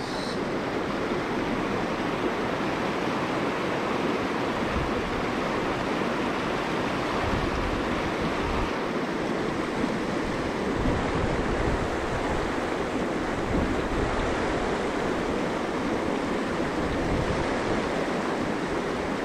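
Mountain stream rushing in a steady wash of water, with wind buffeting the microphone in low rumbles at times.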